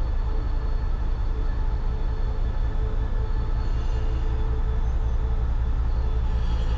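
Container freight train wagons rolling past on the rails: a steady, continuous low rumble of wheels and loaded wagons.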